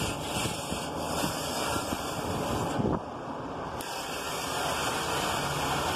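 Water spraying from a hose nozzle onto an evaporator fan shroud, a steady hiss and splatter of water on metal. The hiss thins for about a second near the middle.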